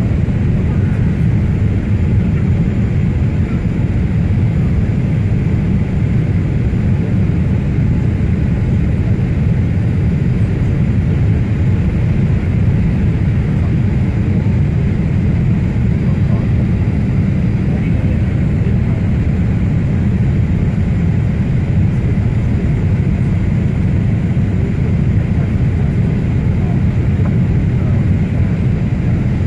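Steady, deep cabin noise of a Boeing 787 Dreamliner on its landing approach: engine and airflow noise heard from inside the cabin at a window seat beside the engine.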